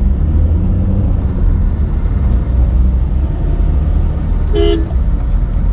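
Steady low road and engine rumble inside a moving car's cabin, with one short vehicle horn toot near the end.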